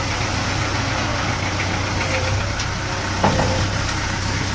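Diesel engine of heavy road-building machinery running steadily, with a single sharp knock about three seconds in.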